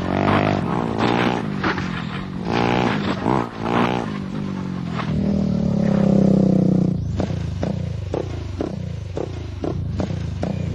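A motorcycle-type engine revving up and down, settling into a steady note about five seconds in, then a run of knocks and scraping clatter, as of the vehicle tumbling down a hill.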